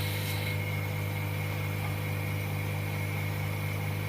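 Vacuum pump of an LCD laminating machine running with a steady low hum, holding the LCD and film down by suction.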